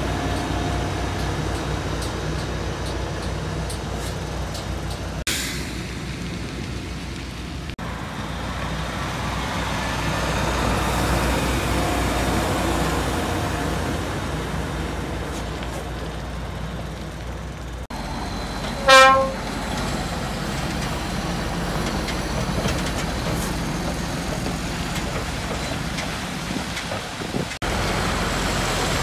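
Heavy diesel truck engine running as the MAN tractor unit hauls the loaded lowboy trailer, with one short, loud horn blast about two-thirds of the way through.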